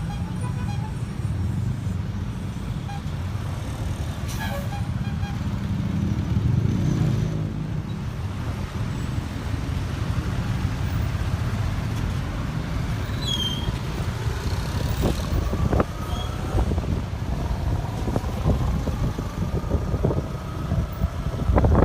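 Road traffic with buses passing: a steady, deep diesel engine rumble. In the second half an engine note slowly rises as a vehicle pulls away, and a few sharp knocks come near the end.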